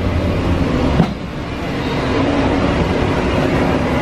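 Steady low rumble and hum of a warship's interior, the ventilation and machinery noise of a passageway, with a single sharp knock about a second in.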